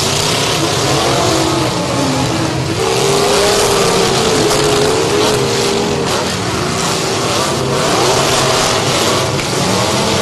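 Several demolition derby cars' engines revving and running together, their pitch rising and falling, over a steady din.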